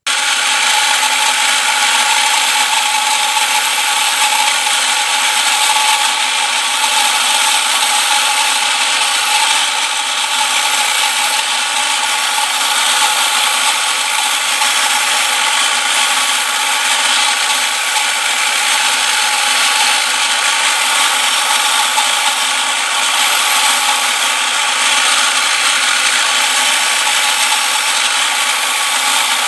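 Bench grinder running steadily with a rusty steel file held against its spinning wheel: a continuous scraping rush over a steady whine, as the rust is ground off the file.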